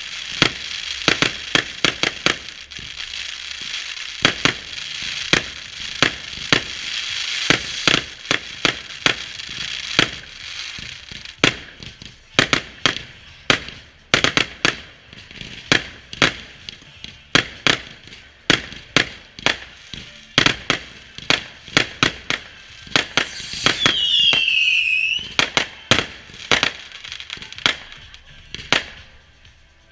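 Fireworks going off: a long irregular run of sharp bangs, several a second at times, over a hiss during the first ten seconds or so. About 24 seconds in, a whistling firework shrieks briefly, falling in pitch.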